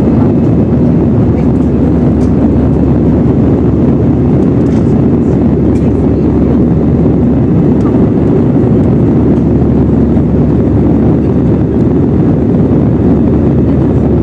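Airbus A320 passenger-cabin noise during the climb after takeoff: the engines and the air rushing past the fuselage make a loud, steady, low-pitched noise.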